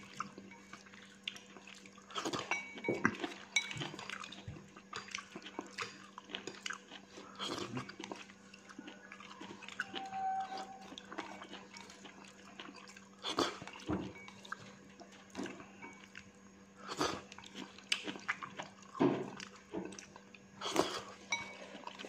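Someone eating noodles: chewing, with wooden chopsticks tapping against the bowl, heard as scattered short clicks and knocks over a steady low hum.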